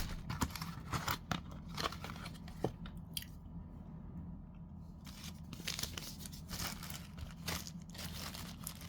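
Packaging of a USB-C to HDMI cable being handled and unpacked: irregular rustles and small clicks, with a quieter pause in the middle.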